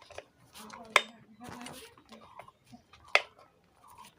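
Small metal clicks and light scraping of a screwdriver tightening the mounting screws of a newly fitted amplifier IC on a home theatre board, with two sharper clinks about a second in and a little past three seconds.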